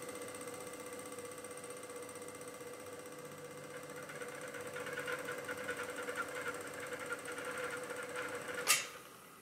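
Revox B77 reel-to-reel tape deck spinning at high speed: a steady mechanical whine with a fast buzzing rattle that grows stronger about halfway through. The rattle comes from the loose tape counter's gears vibrating. A sharp button click near the end stops the machine, and the sound dies away.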